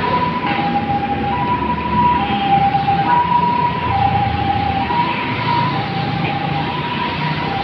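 Two-tone hi-lo emergency-vehicle siren, switching between a higher and a lower note a little under once a second, over the steady noise of heavy road traffic.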